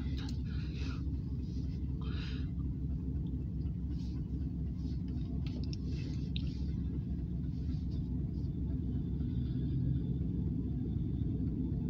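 Steady low diesel engine rumble of a slow-moving freight locomotive, heard from inside a car, growing a little louder near the end.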